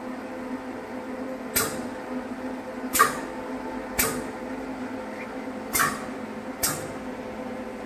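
Automatic toilet-roll pillow packing machine running with a steady hum, broken five times at uneven intervals by short, sharp bursts of air hiss from its pneumatic pushers.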